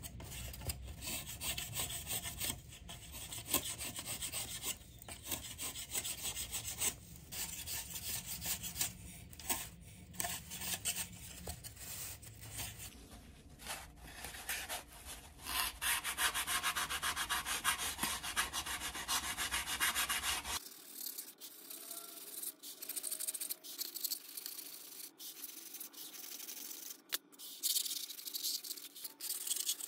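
A balsa wing spar being trimmed by hand: a razor plane shaving the wood in the first part, then a sanding block rubbed back and forth along the spar in repeated scraping strokes to bring it flush with the tops of the wing ribs.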